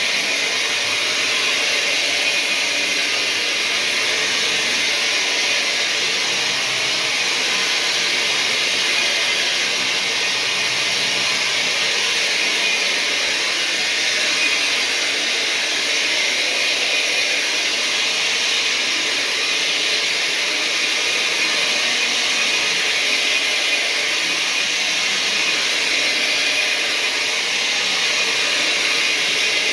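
Counter-rotating brush (CRB) carpet-cleaning machine running steadily, its motor and brushes scrubbing pre-sprayed carpet as it is pushed back and forth.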